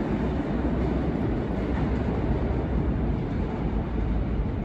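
A departing New York City subway train rumbling away down the tunnel, a steady low rumble with no distinct clicks or squeals.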